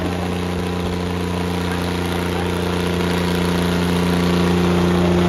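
Diesel tractor engine running steadily, growing a little louder over the last couple of seconds.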